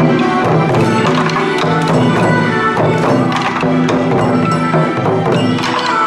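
Bon odori dance music: a recorded pop song arranged for the dance, with held melody notes over a steady beat of clicking percussion.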